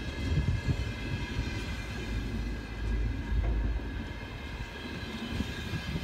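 Empty container flatcars of a freight train rolling past, their wheels rumbling and knocking on the rails, with steady high tones ringing above the rumble.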